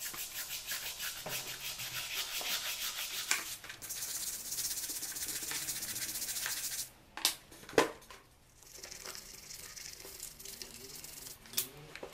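Plastic dish brush scrubbing a rusty iron sledgehammer head in a tub of soapy water: quick rhythmic strokes at first, then a steadier hiss. Two sharp knocks come about seven to eight seconds in, and the scrubbing is quieter after them.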